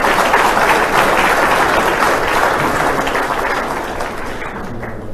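Audience applauding: dense clapping that slowly fades toward the end.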